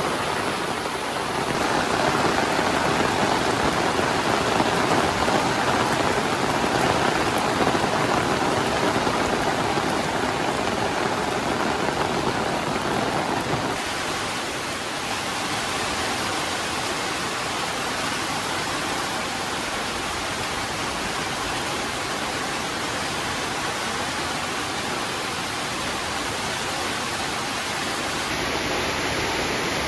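Heavy rain falling, a steady dense hiss that grows louder about two seconds in and eases slightly just before the middle.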